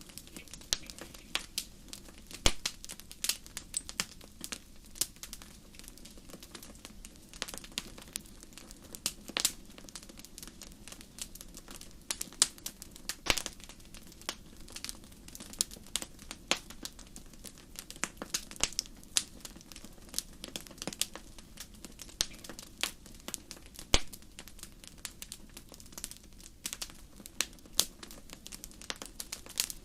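Wood fire crackling: irregular sharp pops and snaps, several a second, over a steady low rush of burning.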